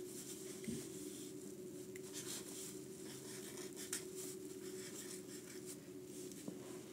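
Felt-tip marker writing on paper: a run of short, scratchy strokes as the tip is drawn across the sheet, with a sharper tick about four seconds in, over a steady low hum.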